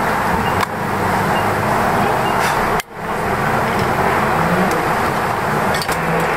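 Steady, loud rushing outdoor noise, with a brief drop about three seconds in.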